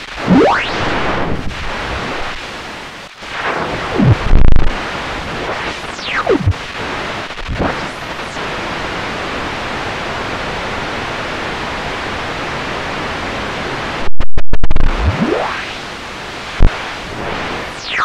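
White noise from a VCV Rack software modular synth, filtered through the Parametra equalizer with its peak bands sweeping: a steady hiss with whistling tones that glide up and down through it. About fourteen seconds in it stutters with several quick dropouts and a brief loud burst.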